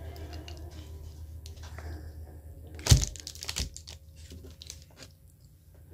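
Sharp clicks and knocks with light paper rustling as a burger wrapper is handled on a table; the loudest knock comes about three seconds in, with a second, smaller one about half a second later.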